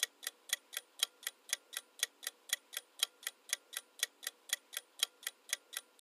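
Countdown-timer sound effect of a clock ticking: an even tick-tock at about four ticks a second, alternating louder and softer, that stops just before the end.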